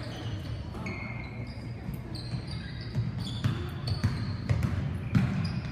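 Basketball being dribbled on a hardwood gym floor, several bounces, with short sneaker squeaks as players cut on the court.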